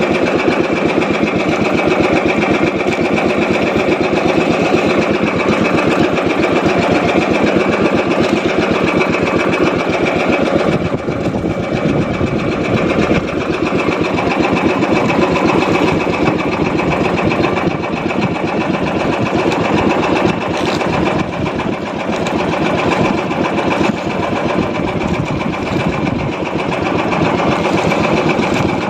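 Small boat engine running steadily with a fast, even chatter, the boat under way; it eases slightly about eleven seconds in.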